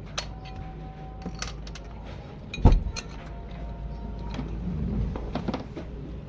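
Metal tools clinking and rattling in an engine bay, with one loud knock a little under three seconds in, over a steady low rumble.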